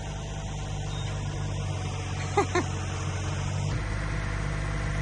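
Old Ford backhoe's engine running steadily at idle, a constant low drone, with a brief high pitched sound about two and a half seconds in.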